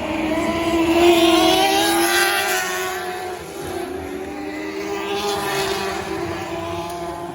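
Micro Lightning sprint cars' engines at race speed, passing by: the engine note swells loudest about a second in, fades, and swells again around five seconds, with the pitch sliding as the cars go by.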